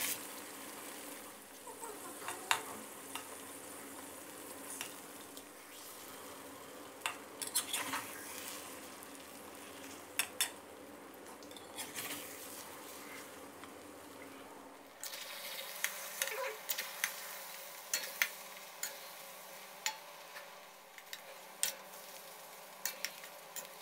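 Eggs frying in oil in a stainless steel wok with a steady sizzle, while a metal spatula scrapes and clinks against the pan as it breaks up and stirs the eggs. The spatula clinks are sparse at first and come thick and fast in the second half.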